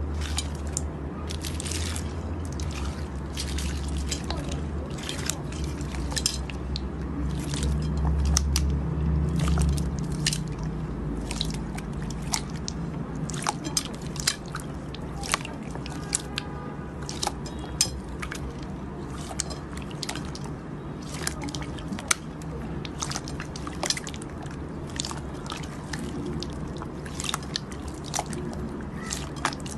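Slime being squeezed and worked by hand, giving irregular sticky pops and clicks, with a low hum underneath for the first third.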